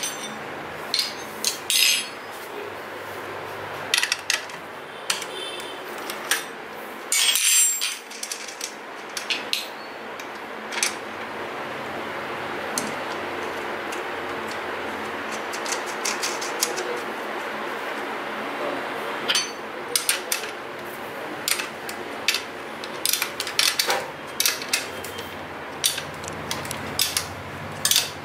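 Scattered metallic clicks and clinks of hand tools and bicycle parts as a mountain bike's rear derailleur is fitted and adjusted, with a loud cluster of clinks about seven seconds in and frequent small ticks later on, over a steady background hiss.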